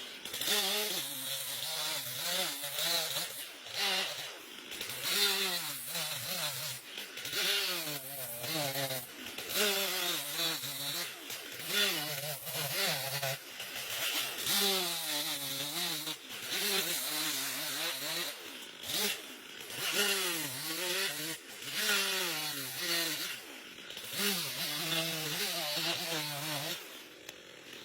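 Chainsaw cutting into a tree stump, its engine pitch rising and falling again and again as the cut loads and frees it.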